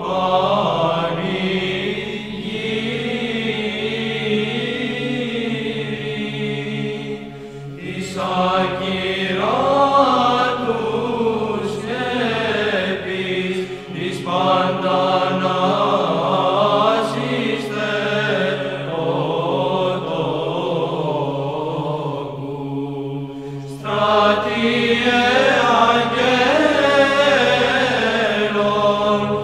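Byzantine-style Greek Orthodox chant: a sung melody moving over a steady held low drone, with new phrases starting about 8 and 24 seconds in.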